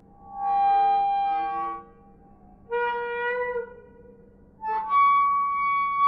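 A swing creaking as it rocks back and forth: three drawn-out squeaks, one with each swing, with short pauses between them and the last one higher-pitched.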